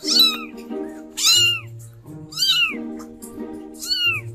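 Young kittens meowing: four high-pitched, rising-and-falling mews about a second apart, over steady background music.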